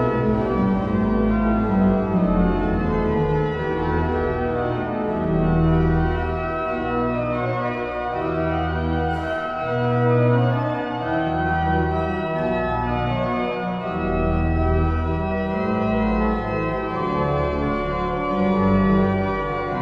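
Organ music: sustained full chords over a bass line that moves slowly from note to note.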